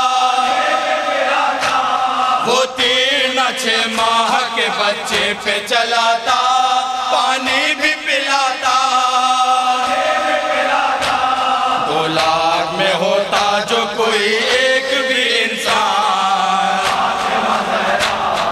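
Men's voices chanting a noha, an Urdu Shia lament, together in long, wavering held notes.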